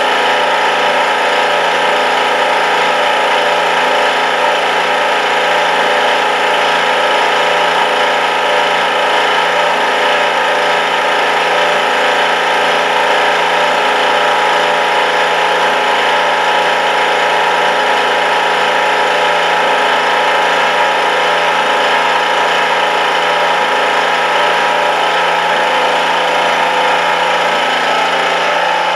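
Milling machine spindle driving a 25 mm indexable end mill with APMT 1003 carbide inserts through a 2 mm deep cut in a metal block at a slow feed: a steady, even cutting and motor sound made of many held tones, which shifts slightly just before the end.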